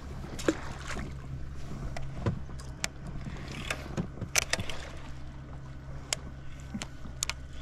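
Sharp clicks and taps from handling a baitcasting rod and reel while fishing a lure, coming at irregular moments over a steady low hum.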